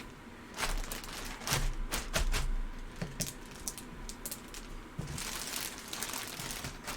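Crinkling and rustling as a jersey is unpacked and handled, with scattered light clicks and a few low bumps.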